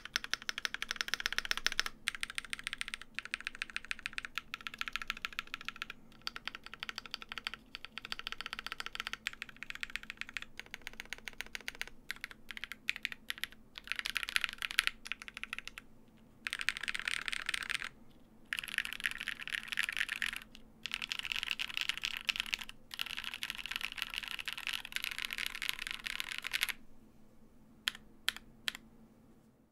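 Typing on a custom mechanical keyboard with Durock POM linear switches in a gasket-mounted, foam-dampened D65 with a polycarbonate plate, each keystroke a crisp bottom-out click. First comes a steady stream of modifier-key presses, then about halfway through quick flurries of rolls across letter and number keys with short pauses between them. It ends in a few single strokes.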